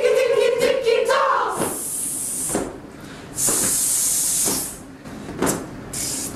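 A group of choir singers holds one sung pitch together, sliding off about a second in, then lets out two long hissing 'sss' sounds of about a second each as a breath-and-pitch warm-up. A couple of short sharp hits come near the end.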